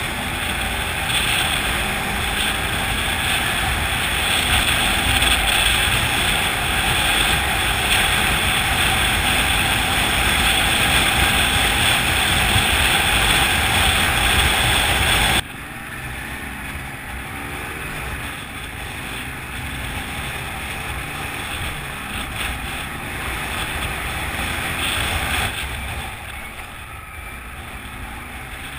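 Polaris Sportsman ATV engine running under way, its pitch wavering with the throttle, mixed with heavy wind noise on the microphone. The whole sound drops suddenly in level about halfway through and stays quieter after.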